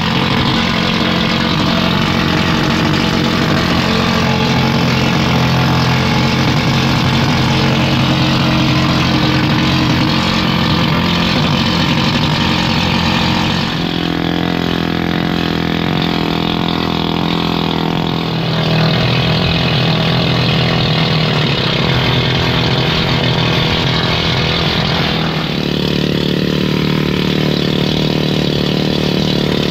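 Power hammering tool, a needle gun or chisel-bit hammer, chipping rust off a steel boat's deck plating. It runs loud and steady, and its note changes abruptly about halfway through and twice more near the end.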